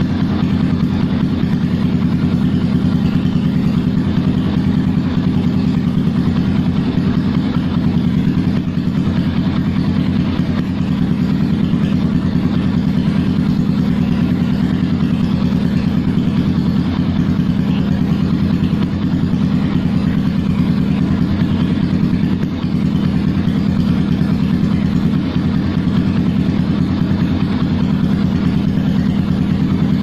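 Yamaha FZ-series motorcycle's single-cylinder engine idling steadily through an aftermarket slip-on exhaust with its silencer insert removed.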